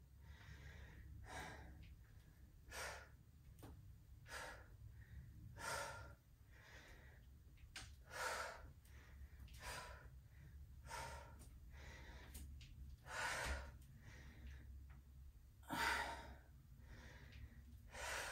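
A woman breathing audibly through a set of squat reps, about a dozen short breaths spaced roughly a second or so apart, over a faint low hum.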